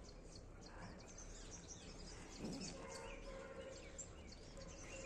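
Quiet outdoor background with faint bird chirps, a brief faint falling call about halfway through, and a faint steady tone near the end.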